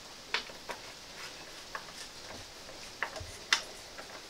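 Scattered light clicks and taps of hands handling metal exhaust parts on a motorcycle: about half a dozen separate ticks, the sharpest about three and a half seconds in.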